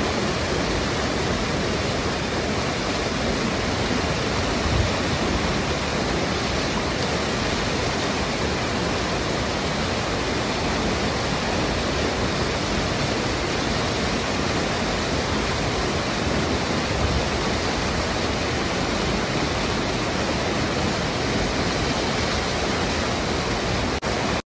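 Water rushing steadily out of a drainage pumping station, an even, unbroken gushing.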